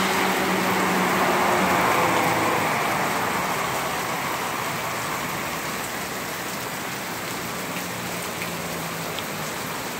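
Heavy rain falling steadily. Over it, a semi truck's engine hum and its tyres hissing through standing water on the road fade away over the first several seconds as the truck slows and passes.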